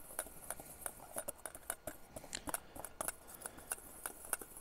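Wire whisk stirring dry seasoned flour in a metal bowl: an uneven run of light ticks and scrapes as the wires strike the bowl, several a second.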